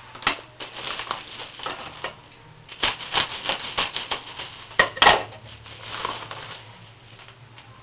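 Paper mailing envelope being handled and torn open: a quick, irregular run of crinkling, tearing rustles, with sharp snaps of paper about three and five seconds in.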